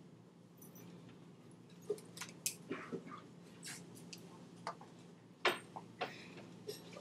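Faint scattered clicks, taps and brief rustles of a quiet classroom while students write notes and handle paper, over a low steady hum. The sharpest tap comes about five and a half seconds in.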